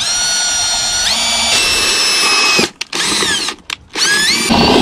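Bosch cordless drill boring pilot holes in a metal awning bracket. The motor whines steadily, jumps up in pitch about a second in, and stops after a little over two seconds. It gives one short burst, then spins up again near the end, where a rougher, louder sound joins the whine.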